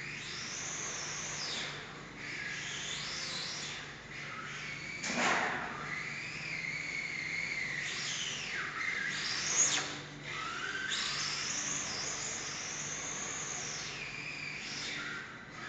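High-pitched whine of an electric radio-controlled touring car's motor and drivetrain, rising and falling over and over as the throttle is opened and closed. There is a brief louder rush about five seconds in.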